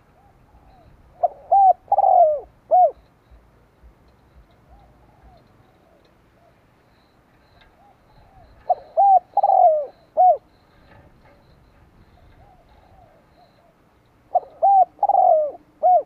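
Spotted dove cooing its song: three loud phrases of four or five short arched coos, about six seconds apart, with fainter coos in between.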